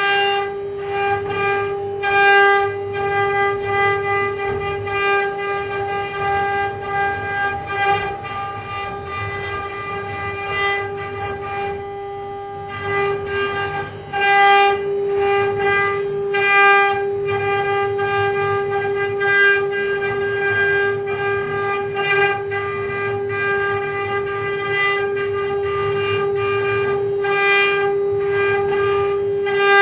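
Mini CNC engraving machine's spindle motor running with a steady high whine, while the cutter works the material with a low rumble and short, louder bursts of cutting noise every few seconds.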